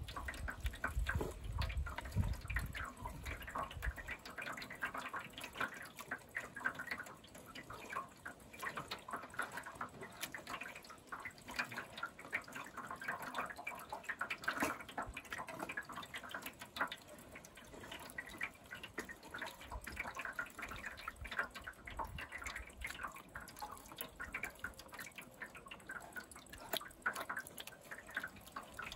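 Wet squelching and dripping as crushed tomatoes are pressed and rubbed by hand through a wooden-framed mesh sieve, juice falling into a metal basin: the pulp being strained from skins and seeds for tomato paste. Irregular short squishes throughout, with a low rumble in the first few seconds.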